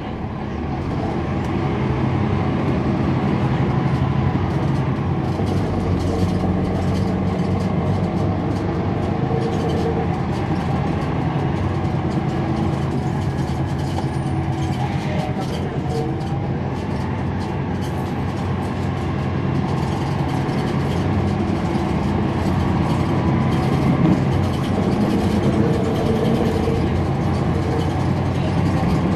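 Interior sound of a NABI 416.15 transit bus under way: its Cummins ISL9 diesel engine running, growing louder over the first couple of seconds and then holding with small rises and falls, over road noise and cabin rattles.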